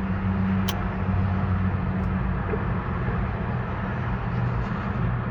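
A steady low hum throughout, with one sharp click under a second in, as the key is turned on a 2007 Hummer H3 that does not start.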